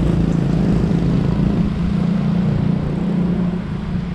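Steady low rumble of bicycle tyres rolling over a street paved with stone blocks.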